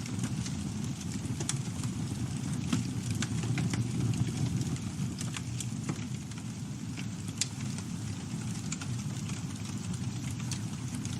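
Campfire burning: a steady low rumble of flames with scattered sharp crackles and pops from the burning wood, one louder pop a little after halfway.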